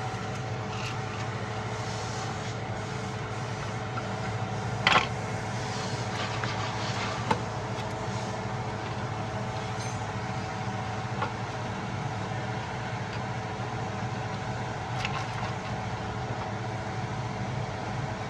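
An engine running steadily with an even hum. A few sharp metallic knocks come over it, the loudest about five seconds in.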